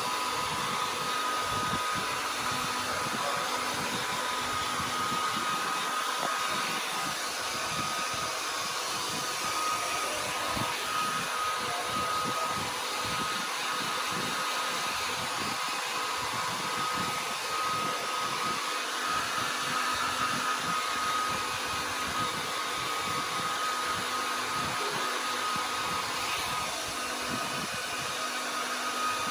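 A dryer and an electric fan running together: a steady rush of air with a thin whine held over it.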